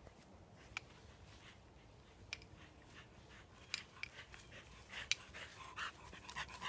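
Dog panting, faint at first and growing louder and quicker near the end as it comes close, with a few faint crunches of footsteps on a leaf-littered dirt trail.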